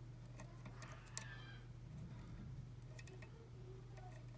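Faint, scattered clicks of a lock pick working the pins inside a challenge lock, over a steady low hum.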